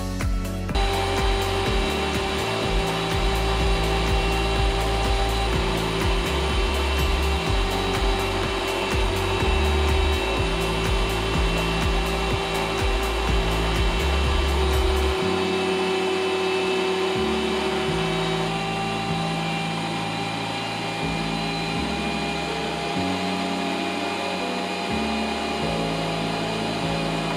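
Electric meat grinder motor running steadily with a hum and whine as it pushes sausage meat through the stuffing tube into the casing. The motor starts about a second in. Background music with a slow bass line plays under it.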